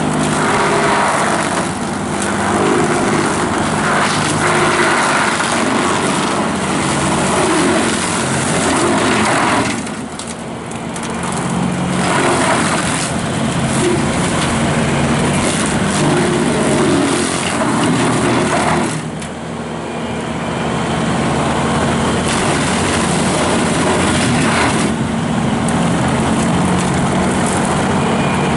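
Skid steer running with the MTL 72-inch hydraulic brush cutter spinning, a steady engine note under a loud rushing of blades cutting brush. The sound eases briefly twice, about a third of the way in and again past the middle.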